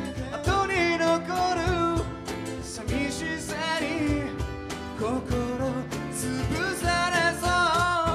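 Live acoustic band music: a singer's voice over acoustic guitar, upright bass and hand percussion.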